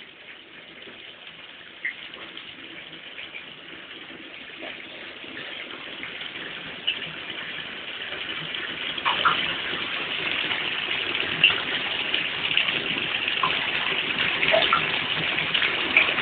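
Water sloshing and splashing in a baby bath tub as a toddler moves and paddles in it. Faint at first, it grows steadily louder from about six seconds in, with small splashes scattered through.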